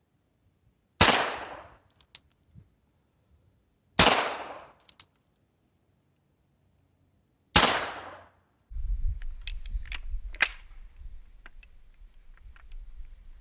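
Three shots from an M1895 Nagant revolver in 7.62×38mmR, about three seconds apart, each ringing off briefly, with small clicks after the first two. After the third shot comes a low rumble with scattered clicks and knocks of handling.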